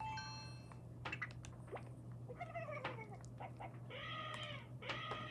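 A string of cartoon sound effects. A short chiming tone and a few clicks come first, then cat meows: a falling meow about halfway through and two stronger meows near the end. A steady low mains hum runs underneath, from the old soundtrack.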